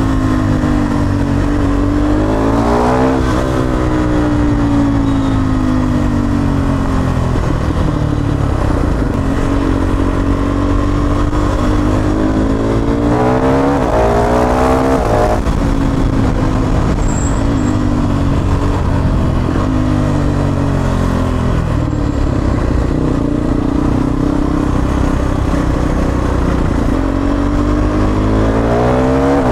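KTM Duke 390's single-cylinder engine through an Akrapovič long-can slip-on exhaust fitted with its dB killer, ridden in traffic. It pulls up through the revs three times, about 2–3 seconds in, around 13–15 seconds in and near the end, and cruises steadily between the pulls. With the dB killer in, the exhaust note is smooth and toned down.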